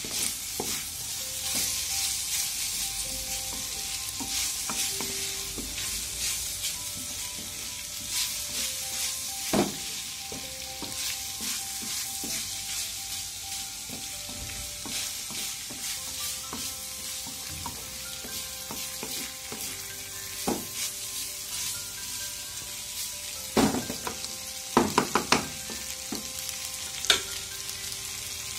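Wheat flour noodles sizzling in a metal kadai as they are stirred and tossed with a wooden spatula, which scrapes and knocks against the pan. A quick run of sharp knocks comes about three-quarters of the way through.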